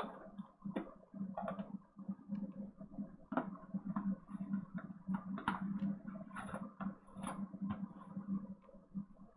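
Plastic shaker cup with its lid on being shaken and handled to mix a drink: a string of irregular plastic clicks and knocks, over a steady low hum.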